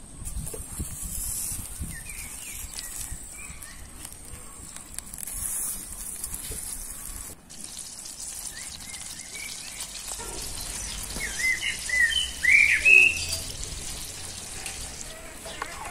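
Small birds chirping in short calls, loudest about twelve seconds in, over a steady faint high hiss from butter melting and foaming in a stainless steel pan.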